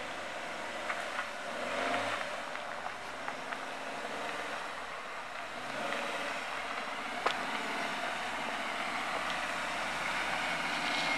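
A 4x4 vehicle's engine running at low speed on a dirt trail, with a steady rushing noise and a few sharp clicks, the clearest about seven seconds in.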